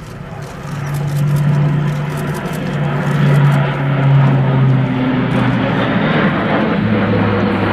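Airbus A400M's four Europrop TP400-D6 turboprops with eight-bladed propellers, heard as the transport aircraft flies low overhead. The propeller hum grows louder about a second in and drops in pitch near the end as it goes past.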